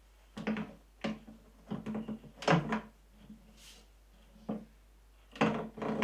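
A heavy Kity 636 jointer/planer being set down and shifted on its wooden cart: a run of clunks and knocks. The loudest comes about two and a half seconds in, and another near the end.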